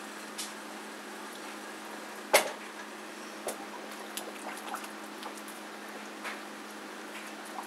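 A whole chicken tipped into a stainless-steel stockpot of boiling water and dipped. There is one sharp knock about two and a half seconds in, then lighter knocks and water sounds, over a steady low hum.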